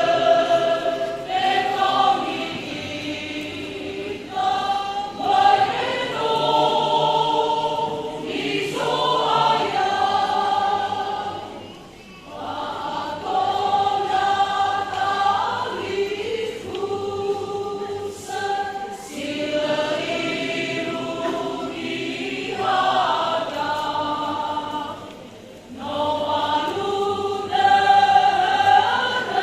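Church choir of pastors singing a hymn in the Nias language, phrase after phrase, with two brief dips between phrases.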